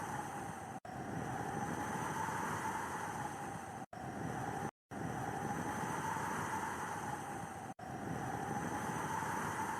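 Steady blizzard wind noise with a faint wavering whistle running through it. The sound drops out to silence for a moment four times, once near the middle for about a quarter second.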